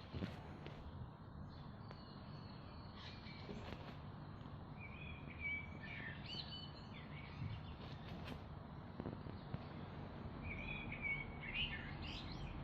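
Birds chirping over a steady outdoor background hiss, in two short bouts about five seconds in and again near the end, with a few faint taps.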